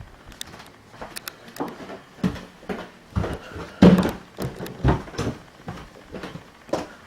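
A run of knocks and thumps, about two a second and loudest about four seconds in: someone moving about on foot and handling things.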